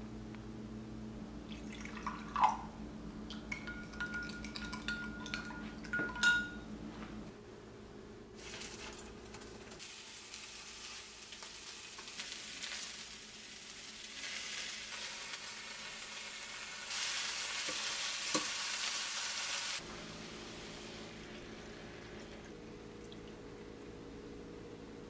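A spoon stirring a sauce of soy sauce and cornstarch in a glass measuring cup, clinking sharply against the glass a few times. Then whole button mushrooms sizzling in oil in a frying pan, a steady hiss that grows louder for a few seconds and cuts off suddenly.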